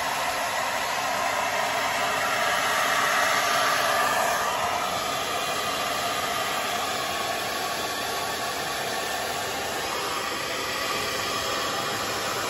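Handheld hair dryer running steadily on full blast, held close to a wax-soaked jacket to melt the wax into the fabric.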